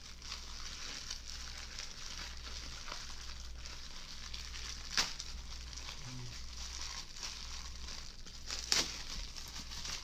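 Bubble wrap crinkling and rustling as a wrapped item is unwrapped by hand, with two sharper snaps, one about halfway through and one near the end.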